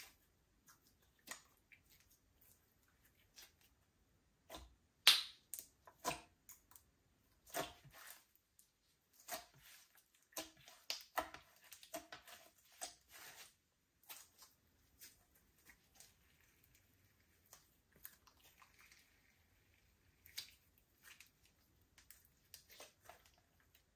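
Slime being squished and stretched by hand, giving irregular small clicks and pops, the loudest a little after five seconds in.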